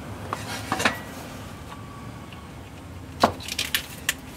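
Sharp plastic clicks and knocks from a hand working the electrical plug on the transfer-case switch of a 1995 Chevy K1500. There is one loud snap a little over three seconds in, followed by a few lighter clicks.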